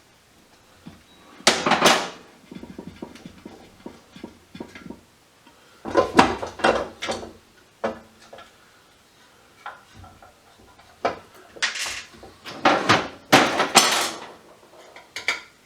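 Small metal hand tools, Allen wrenches among them, clinking and rattling as they are rummaged through. It comes in three bouts: about a second and a half in, around six seconds in, and again from about eleven to fourteen seconds.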